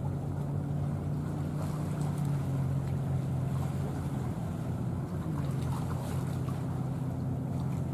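Low, steady drone of ship engines carried across the harbour water, a hum that dips slightly in pitch about five seconds in.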